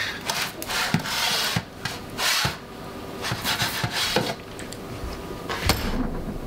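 A baking tray of muffins is dragged out of a Rofco deck oven: scraping and rubbing, with scattered knocks and a sharper knock near the end.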